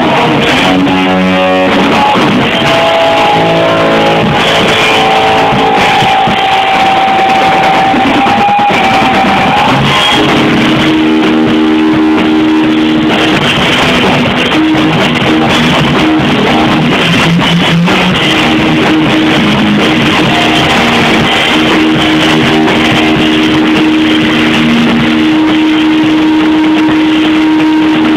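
Amateur rock jam with electric guitar playing long held notes over a steady, loud band sound. It is recorded on a phone, so the sound is muffled, with no treble above the mid range.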